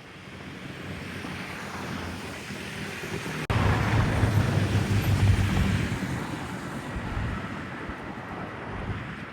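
Aircraft passing overhead, with wind buffeting the microphone. After an abrupt break about three and a half seconds in, the engine noise swells to a peak and then fades away.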